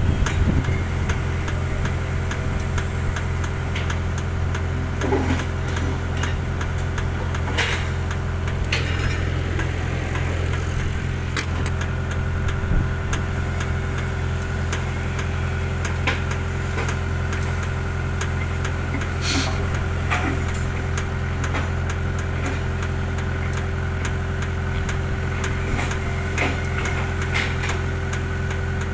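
Engine running steadily at an even speed, with a few scattered clicks and knocks.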